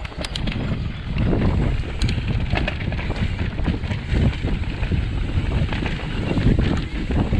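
Wind buffeting a chest-mounted action camera's microphone while a mountain bike rolls over dry, dusty dirt trail. Under the wind there is a low tyre rumble and frequent short clicks and rattles from the bike.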